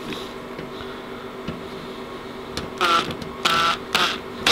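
Makita cordless drill-driver driving screws back into a chiller's metal casing: three short whirring bursts of the motor, starting about three seconds in, with another beginning at the very end.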